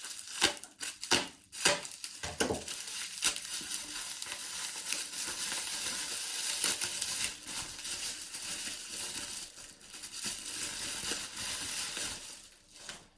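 Bubble wrap and plastic packing crinkling and rustling as a small padlock is unwrapped by hand, with a few sharp crackles in the first couple of seconds and steady rustling after, dying away near the end.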